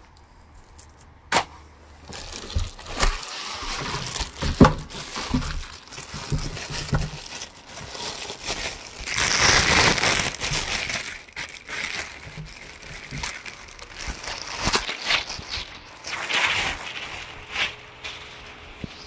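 Plastic packaging bags crinkling and rustling as parts are handled in and lifted out of a cardboard box, with a few sharp knocks and taps against the cardboard. The rustling is loudest about nine to ten seconds in.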